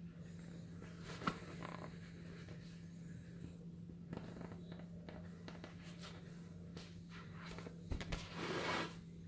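Hands turning and rubbing an inflated vinyl beach ball: faint rubbing and crinkling with scattered clicks, a sharp tick about a second in and a louder rub near the end, over a steady low hum.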